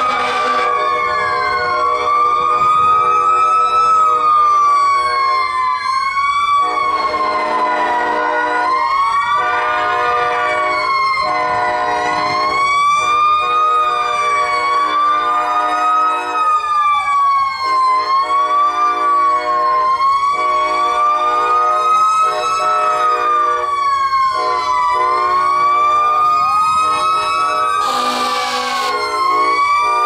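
Several fire engine sirens wailing at once and overlapping, the loudest rising and falling about every two seconds. Under them a locomotive's multi-chime air horn, a K5LA, sounds in a series of long blasts. A loud blast comes near the end.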